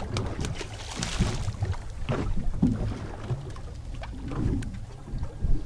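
Small boat rocking on the open sea: a steady low rumble of wind and water, with scattered light knocks and taps from handling on deck.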